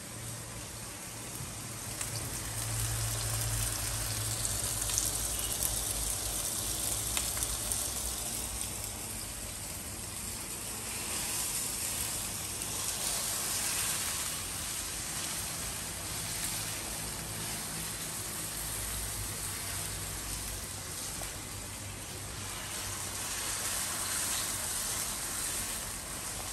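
Sliced bitter gourds (karela) frying in plenty of hot oil in a wok, with a steady sizzle while they are stirred with a spatula.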